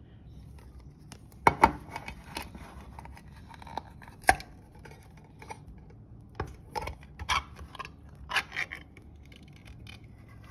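Ring-pull lid of a tuna can being opened by hand. There are a couple of sharp metal cracks about a second and a half in, then further clicks and crackling bursts as the thin lid tears free along the rim and is peeled back.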